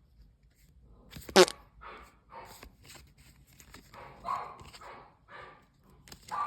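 A small dog gives one sharp, high yip about a second and a half in, followed by softer scattered clicks and rustles.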